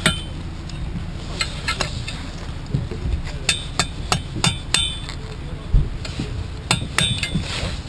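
Hammer tapping a chisel against the hub of a stainless steel outboard propeller, knocking the locking tabs into place: about a dozen sharp metallic clinks with a brief ring, in irregular groups.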